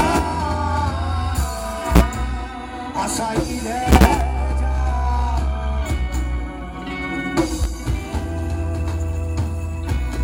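Live roots reggae band playing, with a deep, heavy bass line and sharp drum hits.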